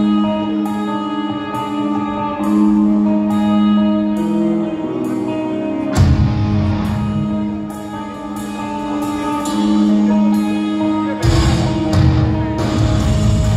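Post-black metal band playing live, heard from the audience: sustained guitar chords over a steady cymbal tick about twice a second. The bass and drums come in heavily about six seconds in, drop back, and return near the end.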